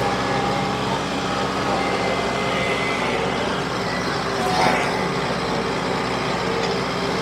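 Farm tractor engine running steadily under load, with a brief rushing swell of noise about four and a half seconds in.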